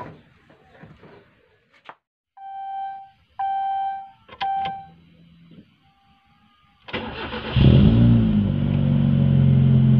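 Car start-up sound effect in a channel intro: three short electronic beeps like a dashboard chime, then, about seven seconds in, a car engine cranks, catches and settles into a loud, steady idle.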